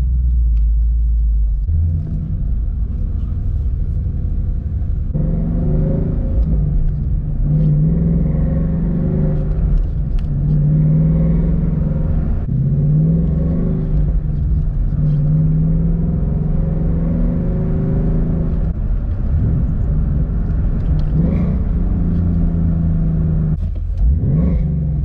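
Ford Mustang GT's 5.0 V8 engine accelerating from low speed with a deep exhaust rumble, heard from inside the cabin. From about five seconds in, the engine note climbs and drops several times as the car pulls up through the revs.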